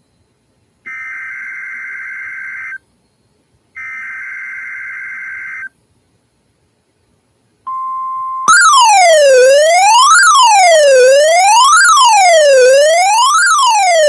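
Emergency Alert System header on NOAA Weather Radio: two buzzy digital data bursts of about two seconds each, a second apart, the end of the three-burst SAME header that codes the alert. After a pause comes a brief steady alert tone, then a loud electronic wail that sweeps up and down about once every second and a half.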